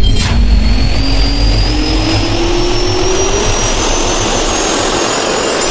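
Jet engine sound effect: a loud rush of air with a turbine whine slowly rising in pitch, a brief whoosh just after the start, and a low rumble that fades after about a second.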